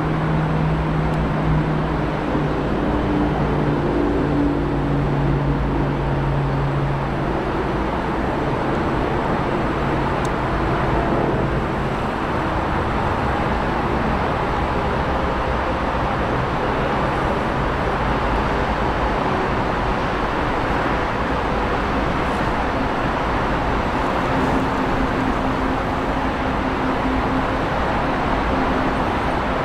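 Boeing 747-400 freighter landing: steady jet-engine noise, with a low hum in the first few seconds and another hum near the end.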